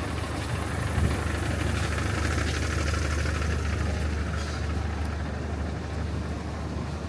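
Small Nissan utility truck's diesel engine idling with a steady low hum.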